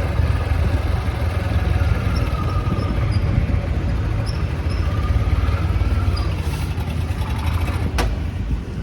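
Hero Splendor motorcycle's single-cylinder engine running with a steady low rumble, with a sharp click near the end.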